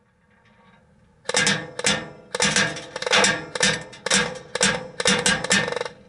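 Airsoft BBs striking a 1/4-inch plexiglass shield in a short-range precision target, in rapid bursts of clattering ticks with a ringing note. About a second in, the bursts begin, roughly two a second, nine or so in all.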